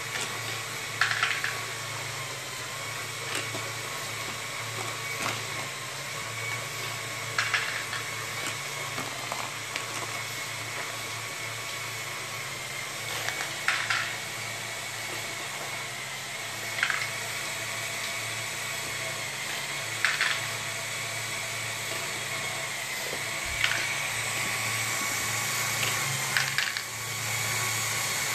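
Lego Great Ball Contraption machinery running: Power Functions motors driving conveyor belts and mechanisms with a steady whir and a thin whine. Short sharp clacks come every few seconds, two of them close together near the end.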